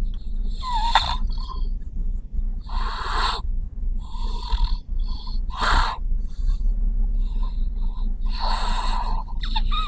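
A person snoring, picked up by a wireless microphone, which makes it sound like a diesel engine: about five loud snores a second or two apart over a steady low hum.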